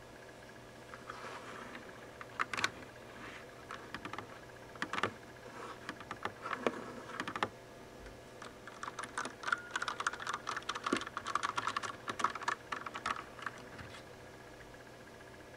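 Das Keyboard mechanical keyboard with Cherry MX Brown switches, its keys pressed and tapped: scattered single key clicks at first, then a dense run of rapid tapping about nine seconds in, thinning out again near the end.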